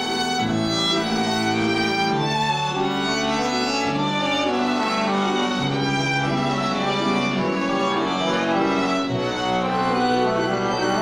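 Violin, accordion and piano playing an instrumental passage: the violin carries the melody over held accordion chords and piano, with bass notes changing every second or two and a rising run near the end.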